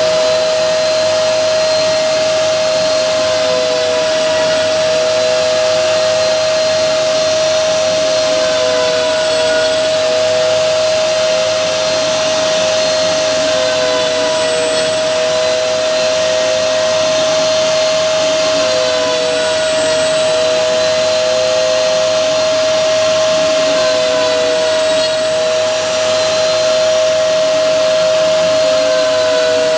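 CNC router spindle running continuously while milling, a steady high whine. A slightly lower second tone wavers slowly up and down over a hissy cutting noise.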